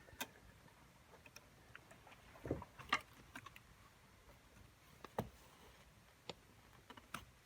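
Scattered quiet clicks and small knocks of hands pushing a seatbelt's electrical plug into its socket and working the connector's plastic locking tab, with a couple of slightly heavier knocks near the middle. The connector is not yet locked home.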